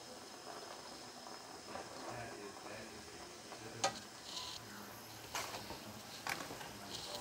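Instant noodles in laksa broth bubbling in a saucepan, a low steady simmer. Three sharp clicks of a wooden chopstick against the pot stand out over it.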